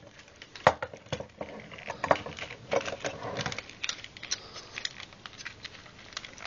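Irregular clicks and clacks of a Binaltech Tracks transforming figure's plastic and die-cast metal parts being handled as its arms are unfolded, with a louder clack about two-thirds of a second in.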